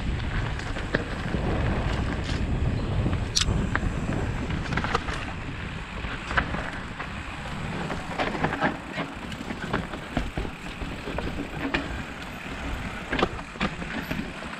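Mountain bike riding over a rough trail: tyres rolling on dirt and rocks, with repeated sharp knocks and rattles from the bike, and wind rumbling on the camera microphone, heavier in the first half.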